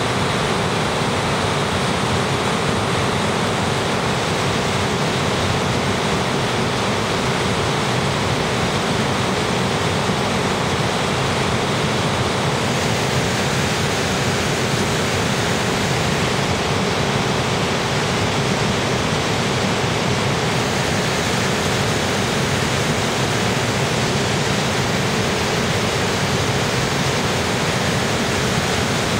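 Underground waterfall on the river Orbe, its water rushing and cascading over rock in a steady, unbroken roar of noise.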